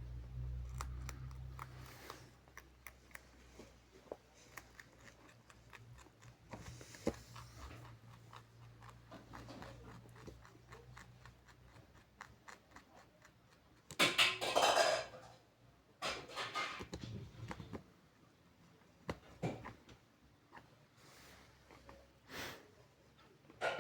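A pet chewing crunchy pumpkin rinds: a run of small, quick crunching clicks. A louder, noisier burst about fourteen seconds in lasts a second or so.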